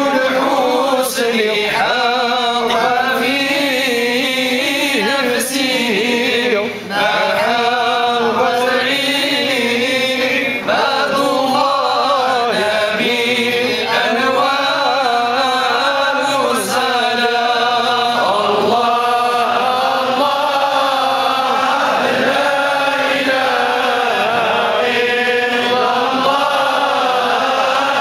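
A large group of men chanting devotional verses together in unison, as one continuous melodic line of many voices.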